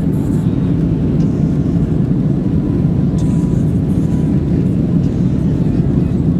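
Jet airliner cabin noise during the climb after takeoff: a steady, deep roar of engines and rushing air heard from inside the cabin by the window.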